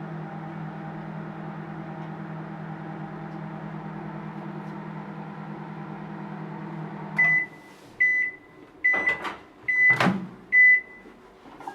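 Microwave oven running with a steady hum that cuts off about seven seconds in as its one-minute cycle ends. It then beeps five times, about one beep a second, and a few sharp clunks sound among the beeps.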